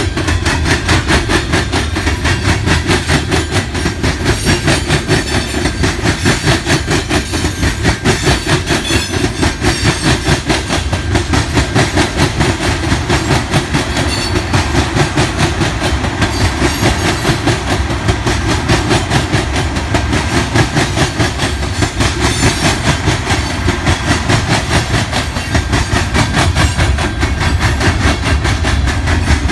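Freight cars of a mixed freight train rolling past, their steel wheels clattering over the rail joints in a steady, rapid clickety-clack.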